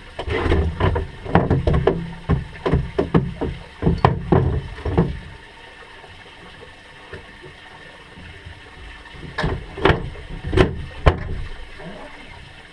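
Irregular knocks and thuds on a small fishing boat: a quick run of them over the first five seconds, then a few more about nine to eleven seconds in.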